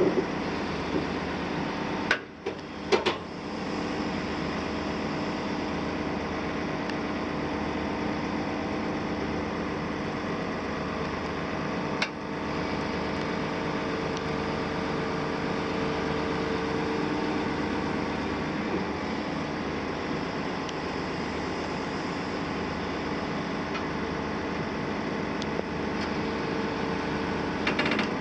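Caterpillar 374F tracked excavator's Cat C15 ACERT diesel running steadily under load, with a droning hum and hydraulic whine as the machine crawls slowly along a low-loader trailer. A few sharp clanks break in, about two and three seconds in, around the middle and near the end.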